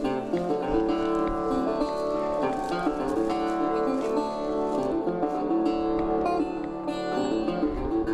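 Background music carried by a plucked string instrument, a melody of held and changing notes.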